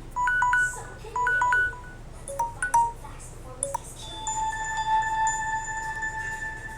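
Tablet ringtone and notification tones playing through the device's speaker: short electronic beeps in pairs, repeated twice, then a few quick notes, then one long sustained chime tone from about four seconds in.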